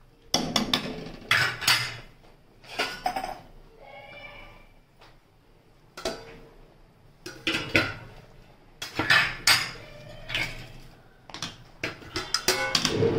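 Metal ladle scraping and clinking against a steel kadhai while stirring thick gravy, in several bouts of knocks and scrapes with short pauses between.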